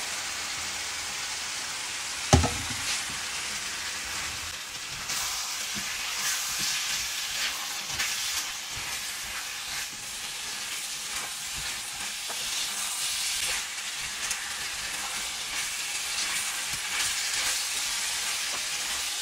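Potato and green bell pepper pieces sizzling in a non-stick frying pan as a wooden spatula stirs them, with a sharp knock about two seconds in.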